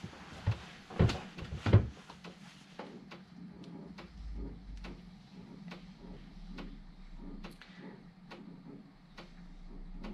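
3.5-inch floppy drives at work during an XCOPY disk copy: a steady motor hum with a sharp head-step click every half second or so as the drives move from track to track, after a few louder knocks in the first two seconds.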